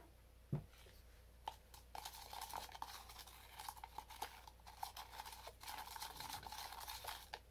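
Metal spoon stirring thick baking-soda chalk paint in a clear plastic cup: rapid, gritty scraping and clicking against the cup's sides, with a single knock about half a second in before the stirring starts in earnest.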